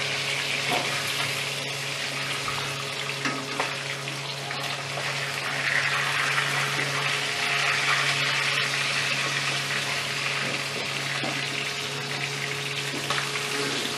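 Hot oil sizzling steadily in a steel kadhai around pieces of marinated chicken that are still shallow-frying, with a few light clicks of a metal spatula against the pan.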